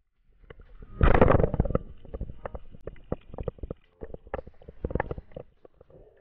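Underwater speargun shot, heard through the water as a loud, muffled rush about a second in. It is followed by irregular knocks and clicks from the spear shaft as the speared fish struggles on it.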